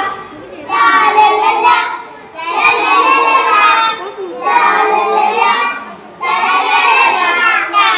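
Young children singing a song together into a microphone, in sung phrases of one to two seconds with short breaks between them.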